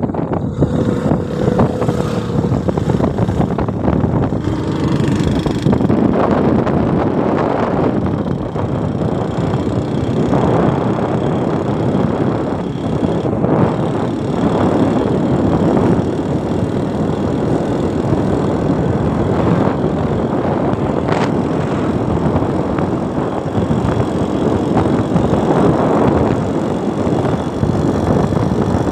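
Motorcycle running steadily while being ridden along a road, heard from the rider's seat.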